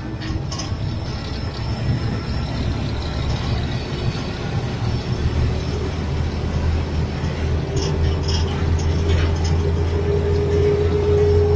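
Toyota Land Cruiser FJ40 driving, heard from inside the cab: a steady low engine drone with a tone that climbs slowly in pitch over the second half as the truck gathers speed, and a few light rattles around the middle.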